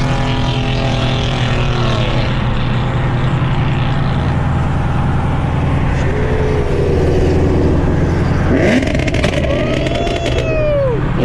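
Car engine and tyre noise heard from inside the cabin at highway speed, a steady low drone. From about nine seconds in the engine revs climb and then fall again under acceleration, with a rush of louder noise.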